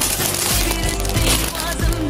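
Pop song playing as background music, with a singer's voice coming in near the end.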